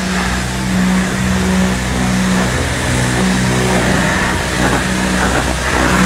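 Pressure washer spraying water over a locomotive's diesel engine, a steady hiss of spray with an engine hum underneath; the spray noise grows louder in the second half.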